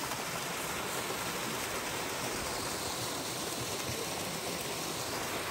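Flowing creek water rushing steadily and evenly.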